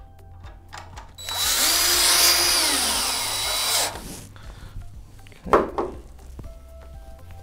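Power drill with a nut-driver bit driving a 1/4-inch structural hex-head screw through a metal strap into a wooden joist for about two and a half seconds, its whine dropping in pitch as the screw snugs down, then stopping. A single thump follows a couple of seconds later.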